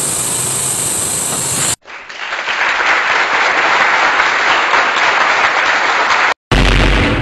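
Steady machinery hiss that cuts off abruptly about two seconds in, followed by an applause sound effect lasting about four seconds. A chime-like musical sting with a deep low tone starts near the end.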